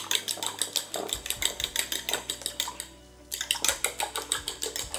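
Metal fork beating raw eggs in a ceramic bowl: rapid clinking of the fork against the bowl, several strokes a second, with a brief pause about three seconds in.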